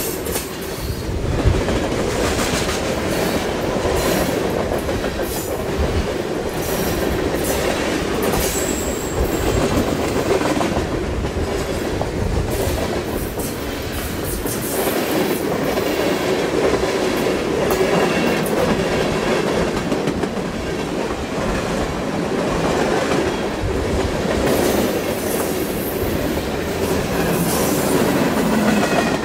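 Train cars rolling past on the rails: a steady rumble of steel wheels with repeated clicks over rail joints and a brief high wheel squeal.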